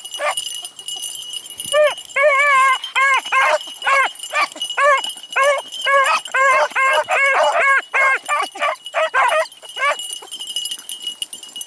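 Beagles baying while working a scent trail: a fast string of short, arching bays starts about two seconds in, with several dogs overlapping in the middle, and stops near the end.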